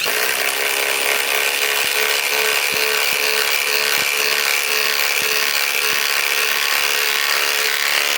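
Ridgid 250 ft-lb subcompact cordless impact wrench hammering a thick 4-inch lag screw into wood with no pilot hole. It runs steadily for about eight seconds and stops right at the end.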